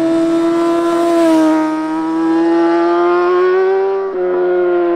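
Motorcycle engine held at high revs as the bike leans through a corner, its pitch sagging a little and then climbing. There is a brief dip and step in pitch about four seconds in.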